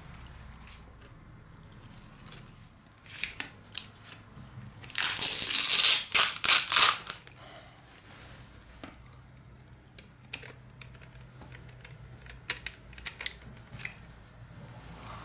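Clear adhesive tape being pulled and torn, a loud rasping burst lasting about two seconds, with scattered small clicks and taps of the tablet being handled before and after.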